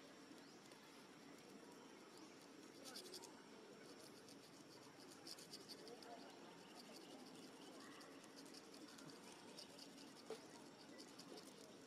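Faint, high-pitched insect chirping in quick pulses, starting about three seconds in and repeating in short trills over a quiet outdoor background.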